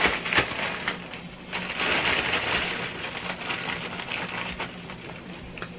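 A plastic bag of frozen hash browns crinkling and rustling as it is handled and opened, with irregular small clicks.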